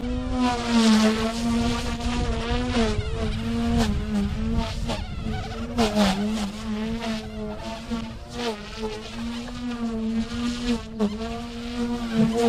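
OMPHOBBY M2 electric micro RC helicopter in flight, its motor and rotors giving a steady buzzing whine whose pitch wavers and dips briefly now and then as it manoeuvres.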